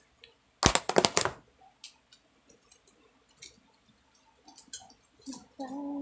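Clear plastic food container lid pressed and snapped shut: a quick run of loud plastic clicks about half a second in, then scattered light clicks and taps of plastic. A short pitched sound comes near the end.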